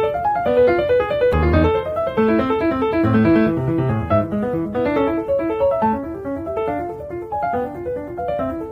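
Background piano music: a quick, flowing run of single notes.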